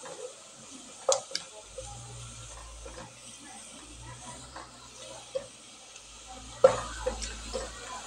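Sliced onions frying in oil in a pot with a faint steady sizzle, while a spatula stirs them and knocks against the pot several times, the loudest knock about six and a half seconds in.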